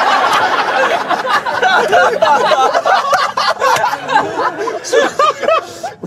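A group of people laughing hard together, several voices overlapping with high-pitched shrieks, dying down near the end.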